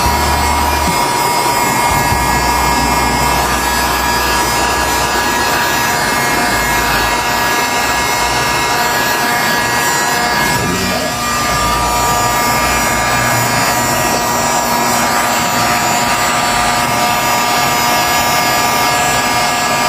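Total 2000-watt heat gun running steadily: the whine of its fan motor over a rush of blown air.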